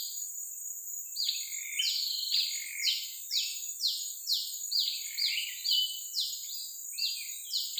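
A bird calling in a rapid series of short, downward-sliding notes, about two a second, starting about a second and a half in, over a steady high-pitched insect drone.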